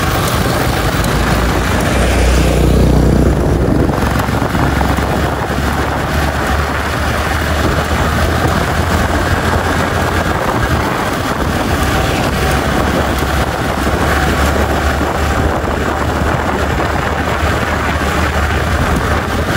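Motorcycle riding at speed: loud, steady wind rush and rumble on the rider's microphone, with the engine and road noise running underneath.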